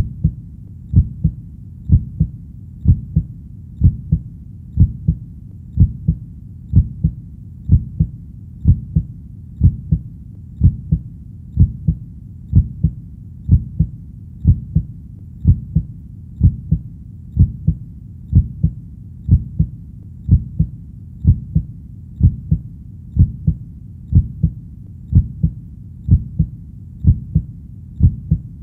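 Heartbeat sound: a steady lub-dub, each beat two low thumps close together, about one beat a second, over a low steady background.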